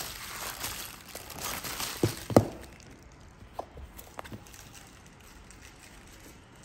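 Bubble wrap crinkling as a small cardboard lens box is pulled out of it. Two sharp knocks about two seconds in, as the box is set down on a wooden table, then a few light taps.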